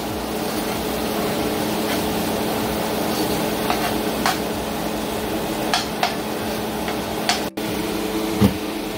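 Metal spoon stirring and scraping a curry sauce of onions and tomatoes in a nonstick frying pan, with light sizzling and a few sharp clicks of spoon against pan, over a steady hum.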